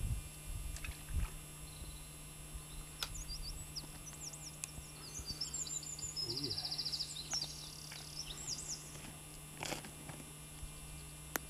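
Small birds chirping and calling in short high notes, with a quick rapid trill about six seconds in. A few soft clicks come in between.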